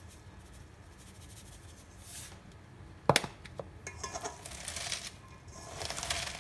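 Hands squeezing and rubbing shredded raw cabbage with salt in a stainless steel bowl: an uneven rustling and crunching from about four seconds in. It is preceded by one sharp knock about three seconds in, the loudest sound.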